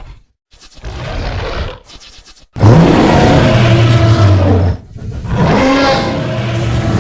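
Custom dinosaur roar sound effects for an Indoraptor character: a short rasping burst about half a second in, then two long, loud, low-pitched roars, the first starting about two and a half seconds in and cutting off suddenly, the second following after a brief pause.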